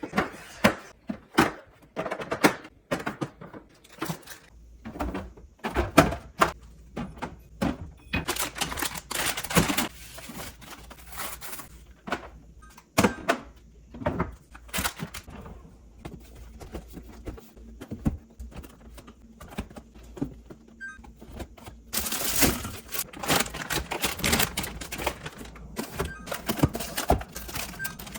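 Food containers and jars being set onto refrigerator shelves and drawers, giving an irregular run of clicks, knocks and clatters, with stretches of rustling about a third of the way in and again near the end.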